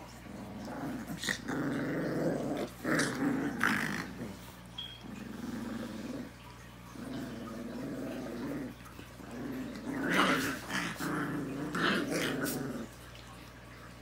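Rottweiler puppies growling in play, in rough bouts of one to three seconds with short gaps between them.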